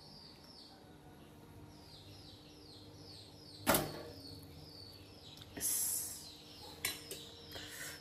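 Small birds chirping in runs of short falling calls. A single sharp metallic knock comes about halfway through, and a brief scrape and a few light clicks of a steel spatula on a steel plate follow near the end.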